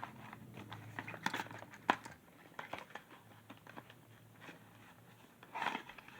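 Small packaging being handled: scattered clicks and crinkling rustles, with one sharp click about two seconds in and a short louder rustle near the end.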